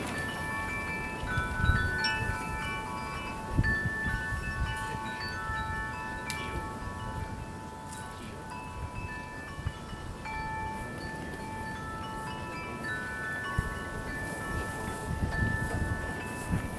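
Wind chimes ringing at irregular moments, several clear metal tones of different pitches overlapping and fading away.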